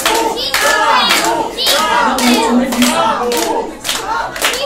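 A small audience clapping by hand in irregular claps, with several raised voices talking and calling over it.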